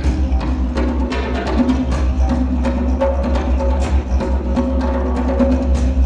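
A didgeridoo holds a steady low drone with rhythmically pulsing overtones, over fast, steady strokes on a djembe.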